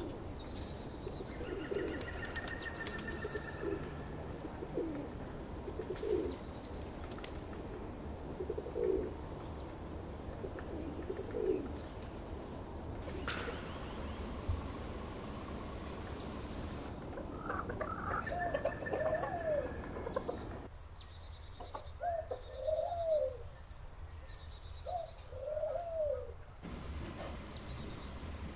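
Birds calling outdoors: short low cooing notes repeat about once a second through the first half, while brief high chirps and trills come and go throughout. In the second half, a few arched, rising-and-falling calls take over.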